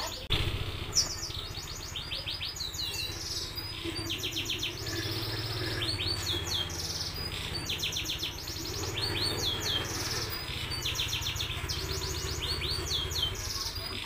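Domestic canary singing continuously: rapid, high rolling trills repeated one after another, broken up by swooping notes that slide down and back up.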